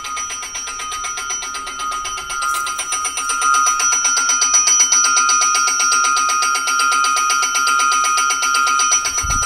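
Electric station bell ringing steadily with rapid strokes, louder from about three seconds in; it signals a train approaching from Mendrisio.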